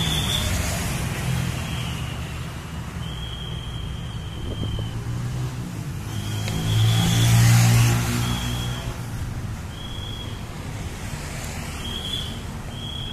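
Road traffic of motorcycles and trucks, with engines humming steadily and one vehicle passing close about seven seconds in, the loudest moment. A short high tone repeats every second or two over the traffic.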